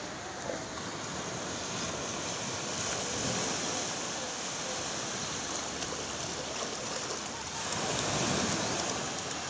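Surf breaking and washing up a sandy beach: a steady rush of waves that swells louder near the end.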